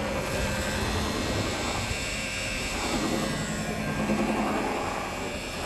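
Electric buffer running steadily as it polishes the gel coat of a fiberglass glider, with an even whirr and a constant low hum.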